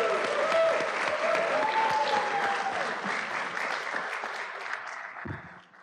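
Audience applauding, with a few voices calling out over the clapping in the first couple of seconds; the applause thins out and stops just before the end.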